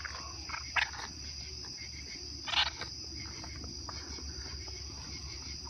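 Night insects trilling steadily, with two short breathy huffs, about a second in and again midway, from an albino Doberman and a raccoon sniffing at each other nose to nose.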